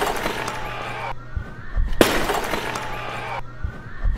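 A clay jar is thrown down onto a hard stage floor and shatters about two seconds in. The pieces clatter and scatter across the boards, and at the start the shards of the jar smashed just before are still settling.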